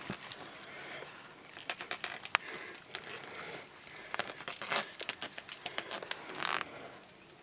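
A cat gnawing on a stick: irregular crunching, crackling and clicking, with a sharp crack about two seconds in and longer scraping bites later.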